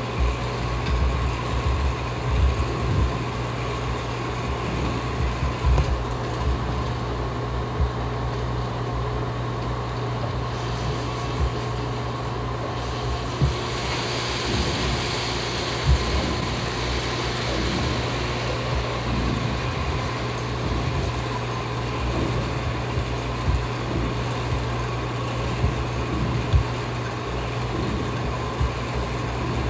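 Motor-driven sound sculpture running: a steady mechanical hum with irregular low knocks, and a brighter hiss for a few seconds about halfway through.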